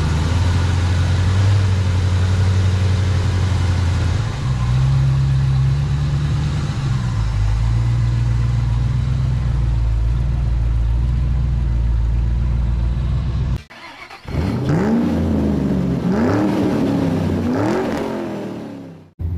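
Car engine idling steadily with a low tone, then after a break a second stretch where an engine is revved three times in quick rising blips about a second apart.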